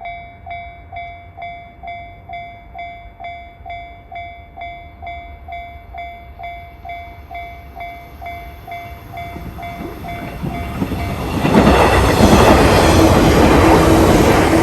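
A Japanese level crossing's electronic warning bell dings steadily, a little over twice a second. From about ten seconds in, a Shinano Railway train comes up and passes close over the crossing, and its loud wheel and running noise drowns the bell.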